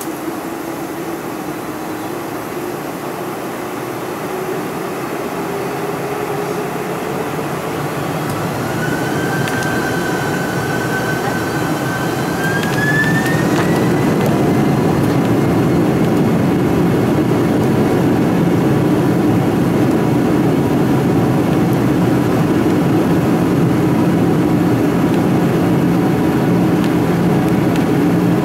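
Boeing 747-400's GE turbofan engines heard from inside the cabin, spooling up for takeoff. The engine whine rises in pitch, and about halfway through the sound grows louder and then holds steady at full power as the jet starts its takeoff roll.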